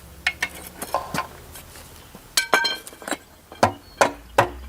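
Hand tools clinking and knocking on metal engine parts: scattered light clicks, a ringing metallic clink about halfway through, then a run of sharp taps about three a second near the end.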